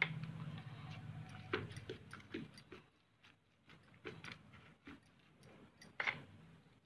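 Boiled potatoes being mashed by hand in a bowl: faint, irregular soft clicks and squishes as fingers press the potato against the bowl, the sharpest about six seconds in. A low hum runs under the first two seconds or so.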